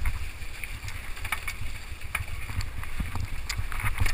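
Mountain bike clattering and knocking irregularly as it rides down a rocky trail, under a steady low rumble of wind on the microphone.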